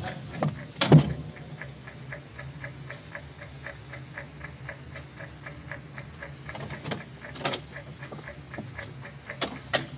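Radio-drama sound effect of a bomb's time fuse ticking steadily and quickly, like a clock, with a few louder knocks about a second in and near the end.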